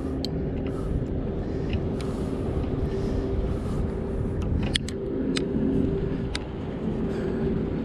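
A steady engine hum over a low rumble, with a few light clicks.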